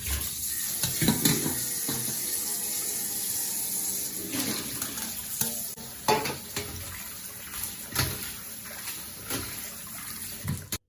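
Tap water running into a basin while cut jellyfish strips are rinsed to wash out their salt, with splashes and knocks as they are handled. The running water gets quieter about six seconds in.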